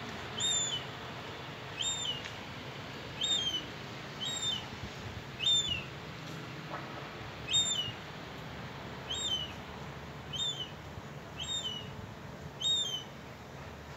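Juvenile lesser black-backed gull calling: a short, high piping note that rises then drops, repeated about ten times at roughly one-second intervals.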